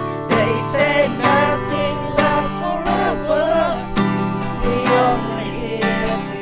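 Acoustic guitar being strummed, with a wavering melody line over the chords.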